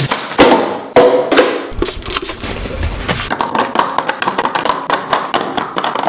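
Background music with a percussive beat.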